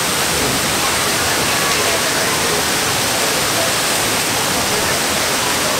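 Steady rush of falling water from a large artificial waterfall pouring down a theme-park volcano.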